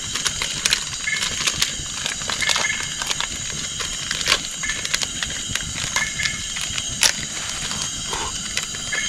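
A cooking fire crackling with scattered sharp pops, over a steady high-pitched chorus of insects. A few short chirps come now and then.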